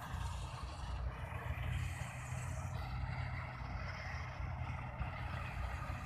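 Combine harvester running as it cuts wheat: a steady low engine drone with a constant layer of machinery noise over it.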